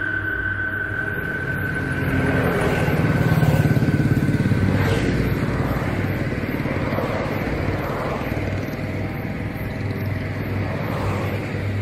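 A motor engine running steadily, swelling louder for a few seconds about two seconds in.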